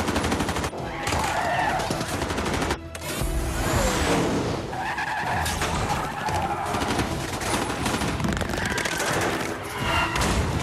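Action-film car-chase soundtrack: rapid machine-gun fire over car engines and tyres, mixed with music.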